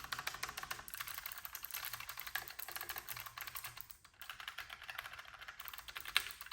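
Rapid typing on a Keychron K5 SE low-profile mechanical keyboard with Gateron Blue switches, a fast run of sharp, clicky keystrokes that pauses briefly about four seconds in.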